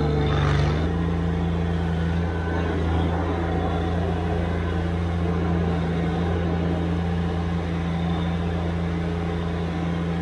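Subcompact tractor's diesel engine running steadily at constant speed, with a brief hiss about half a second in.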